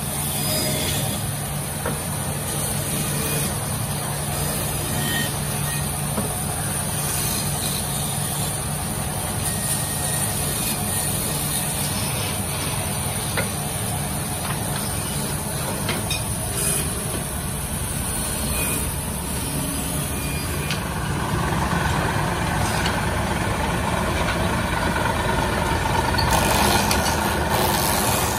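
Band saw running steadily while its blade cuts wooden spoon blanks, with a constant low motor hum. About twenty seconds in the sound grows brighter and a little louder.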